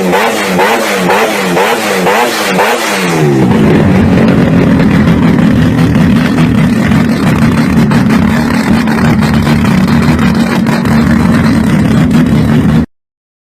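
Quad-turbo Mazda rotary engine being blipped in quick revs, about two or three a second, for the first few seconds. It then holds a steady, loud drone, which cuts off abruptly near the end.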